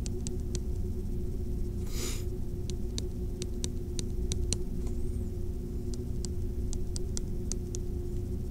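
A steady electrical hum with a low rumble under it, and a run of light, sharp clicks a few times a second as a stylus taps and writes on a tablet screen. A brief hiss sounds about two seconds in.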